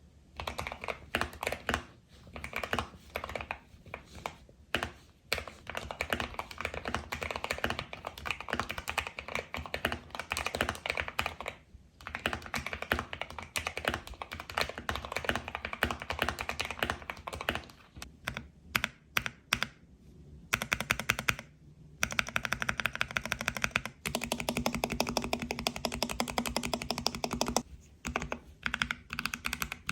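Typing sound test on a modded budget 60% mechanical keyboard with lubed Akko Jelly Pink linear switches, a foam-lined case and a foam-filled spacebar with a lubed stabilizer: quick runs of keystrokes broken by short pauses, with a faster, steadier stretch of typing in the last third.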